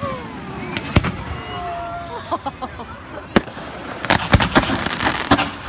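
Fireworks going off: single sharp bangs about a second in and past the middle, then a quick volley of cracks and another bang near the end, over a steady crackling hiss. People's voices can be heard between the bangs.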